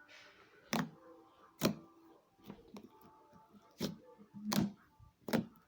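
Slime being squeezed and stretched by hand, giving a run of irregular sharp pops and clicks, about five loud ones with smaller ones between.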